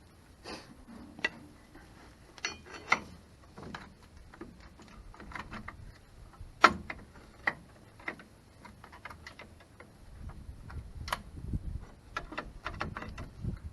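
Irregular metal clicks and clinks of hand tools against drum brake hardware, with one sharper clink about halfway through. A low rumbling joins from about ten seconds in.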